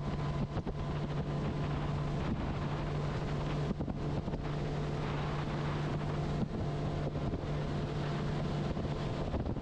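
A steady engine hum, with wind buffeting the microphone.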